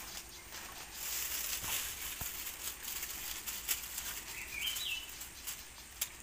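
Water dripping and pattering off a lift net as it is raised out of a stream, with a few small clicks of handling. A bird gives one short rising call about two-thirds of the way in.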